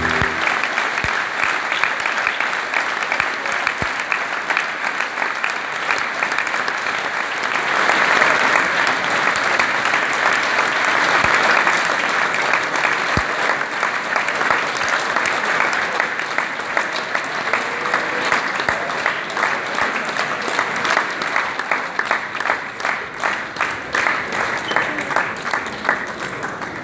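Audience applauding in a hall, swelling about eight seconds in, then settling into rhythmic clapping in unison that fades near the end.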